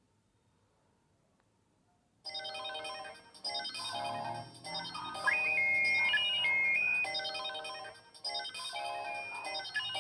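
Samsung GT-E3300L mobile phone ringtone: a synthesized multi-voice melody that starts suddenly about two seconds in after near silence, its phrase starting over near the end.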